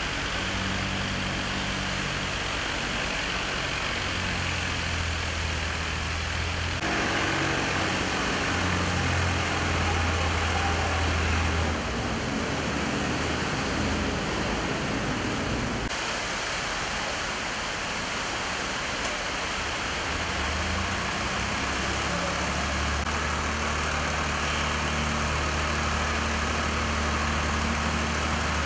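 Street traffic in floodwater: car engines running and idling under a steady hiss of rushing water. The mix changes abruptly a few times as the shots change.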